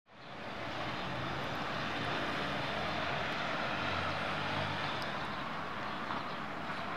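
Steady distant engine drone over outdoor town ambience, with a low hum under it and a few faint ticks; it fades in at the very start.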